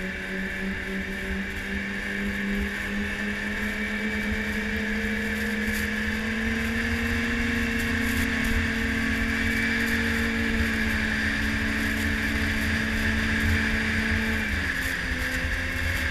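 Yamaha snowmobile engine running steadily while riding. Its note climbs slowly over the first several seconds, holds, then drops about two seconds before the end.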